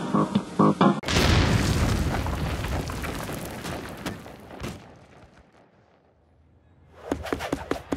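Music cuts off about a second in for a deep cinematic boom whose rumble fades slowly to near silence. A few quick percussive hits start near the end.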